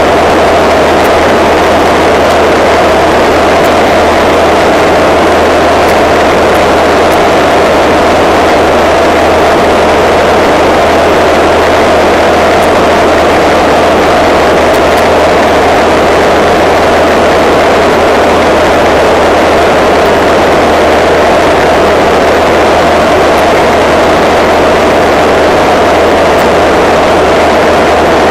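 Single-engine propeller aircraft's engine and propeller running at a steady cruise, heard loud and unchanging from inside the cockpit, a constant drone with a low hum beneath and air rushing over the canopy.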